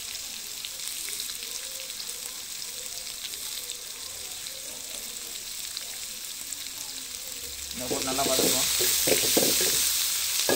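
Sliced onions, green chillies and curry leaves sizzling steadily in hot oil in a metal pot. About eight seconds in, a ladle starts stirring them and the sizzling gets louder.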